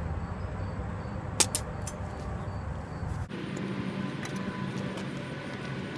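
Steady low outdoor rumble with a single sharp click about a second and a half in. A little after three seconds the rumble drops away abruptly, leaving a fainter steady hum.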